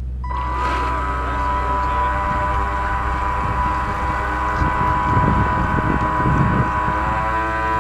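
Pro Boat Alpha Jet RC jet boat's motor and water-jet drive whining up to a steady high pitch about a quarter second in as the boat throttles away. Water churns and splashes against the hull beneath the whine, heard from a camera on board.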